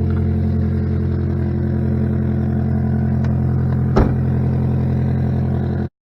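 Saturn Ion Redline's supercharged 2.0-litre four-cylinder running loud and steady, the exhaust blowing through a major leak. One sharp knock about four seconds in, and the sound cuts off suddenly near the end.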